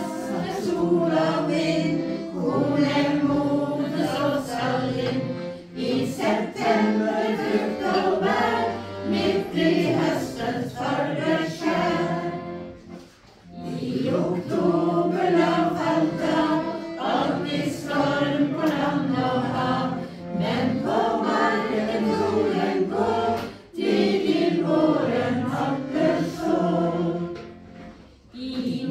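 A group of people singing a song together, in phrases with a few short pauses between them.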